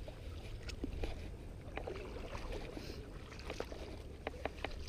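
Legs wading through shallow water, making irregular sloshes and small splashes over a steady low rumble.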